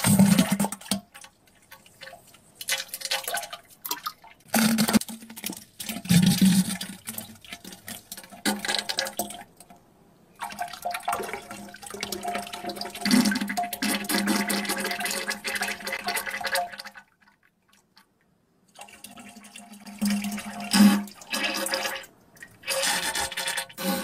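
Farting and splashing noises from a person on a toilet, in a string of separate bursts with pauses between them; the longest runs for several seconds in the middle, and after a short silence a few more bursts come near the end.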